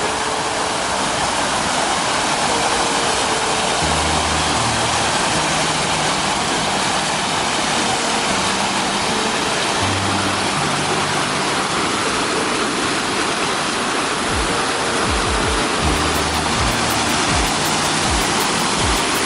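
Fountain water splashing steadily, with background music over it: a bass line throughout and a regular beat coming in about three-quarters of the way through.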